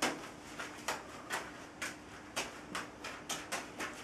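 Four juggling balls slapping into the hands as they are caught and thrown, a short soft impact about three times a second in an uneven rhythm.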